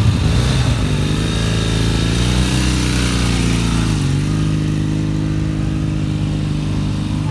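Motorcycle engine running, revved up once about two seconds in and dropping back after a couple of seconds, then holding a steady speed.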